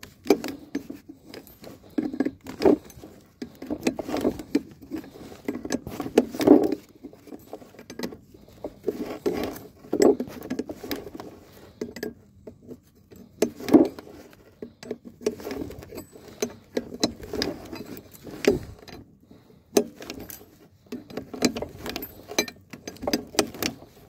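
Hand tools clinking and knocking against metal in an irregular run of clicks and rattles: the old brake chamber on a trailer's disc-brake axle being worked loose.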